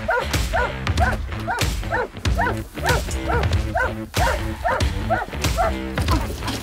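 Hunting dogs barking in a quick, continuous run of short barks, about three a second, as they are let out of the dog trailer for the hunt; the barking stops shortly before the end. Background music with steady bass notes plays underneath.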